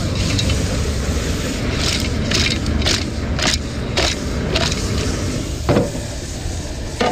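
A metal cooking pot being handled on a portable gas stove: a run of short scraping strokes, about two a second, from about two to five seconds in, then a couple of sharper knocks. A steady low rumble runs underneath.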